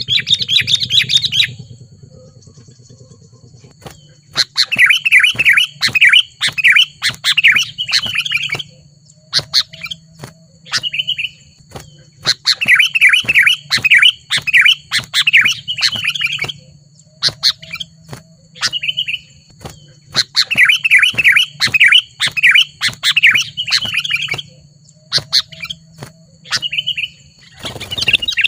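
Sooty-headed bulbul (kutilang) singing loudly. Its song comes in repeated phrases of rapid chattering chirps, each about four seconds long and recurring about every eight seconds, with short calls and sharp clicking notes between them.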